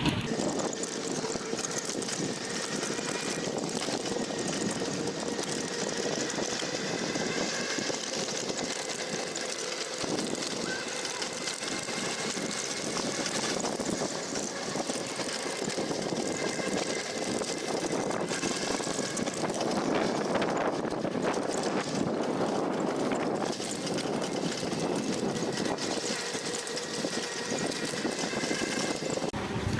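Steady running noise of a small motor vehicle on the move, an even drone with faint steady tones and no sharp events.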